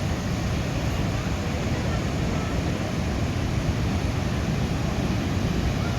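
Steady roar of a large waterfall, Athirappilly Falls, a continuous low rushing noise with faint voices underneath.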